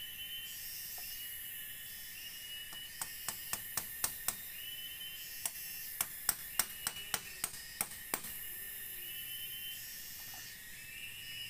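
Steady chorus of forest insects, with chirps repeating every second or two. In the middle come two runs of sharp clicks, about four a second: six, a short pause, then nine more.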